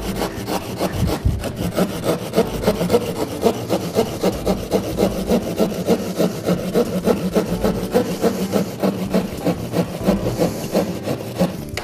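Fine-bladed hand saw (drywall jab saw) cutting through gypsum plasterboard: a steady run of short, quick back-and-forth sawing strokes.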